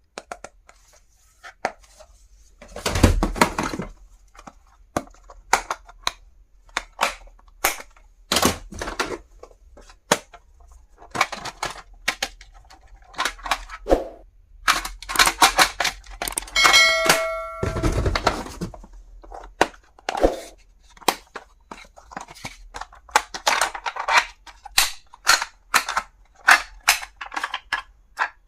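Stationery items being handled and unpacked: irregular clicks, taps and knocks, two heavier thumps, and a brief ringing ding about 17 seconds in.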